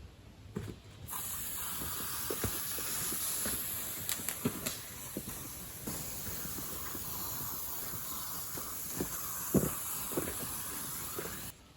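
A steady hiss that starts abruptly about a second in and cuts off near the end, with scattered light knocks and taps.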